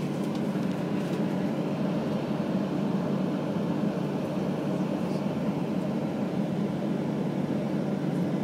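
Steady hum inside the cabin of a Boeing 737-800 waiting on the ground, its CFM56-7B engines idling and the air conditioning running.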